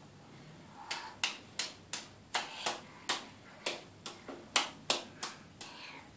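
A toddler clapping his wet, foam-covered hands together: about a dozen quick, uneven claps, starting about a second in.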